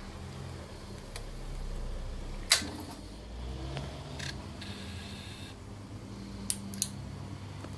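A few sharp clicks from an Aprilia Tuono's starting system as it is tried without the engine starting, over a low steady hum: one loud click about a third of the way in and two close together near the end. It is a no-start that the owner puts down to either a weak battery or a failed sprag clutch.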